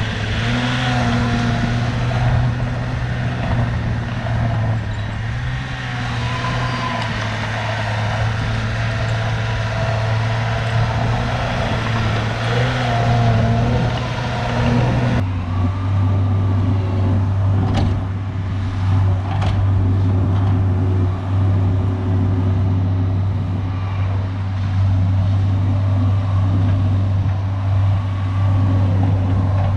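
Diesel engine of a tracked earthmoving machine running steadily at working speed. The sound changes abruptly about halfway, and a few sharp knocks come shortly after.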